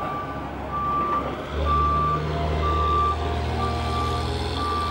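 Reversing alarm of an airport passenger stair truck beeping about once a second, each beep about half a second long, as the truck backs its stairs away from the aircraft door. Its engine runs underneath, louder from about a second and a half in.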